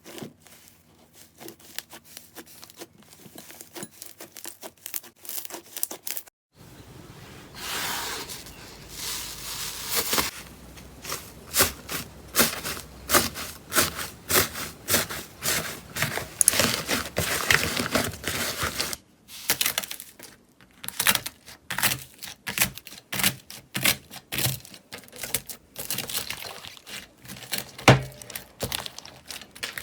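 Slime being squeezed and stretched by hand, making a dense run of sticky crackles and pops. It comes in three separate clips that cut at about six and nineteen seconds in, with one sharp louder pop near the end.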